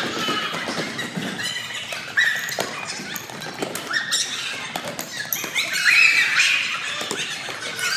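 Rubber-soled sneakers squeaking and footsteps slapping on a hardwood gym floor as students sprint back and forth, with students shouting in the echoing gym, loudest about six seconds in.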